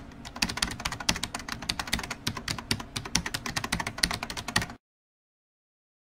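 Computer keyboard typing sound effect: a fast, continuous run of key clicks that cuts off abruptly about five seconds in.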